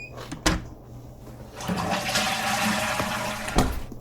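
Toilet flushing: a rushing of water for about two seconds, with a sharp click shortly before it and another as it stops.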